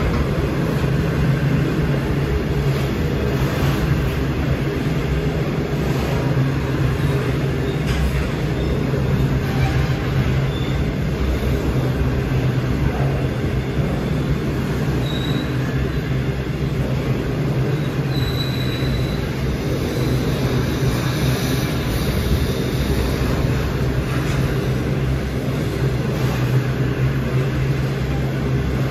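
A train rolling past close by: a steady rumble of wheels on rail with a low hum underneath, and a couple of brief high squeaks about halfway through.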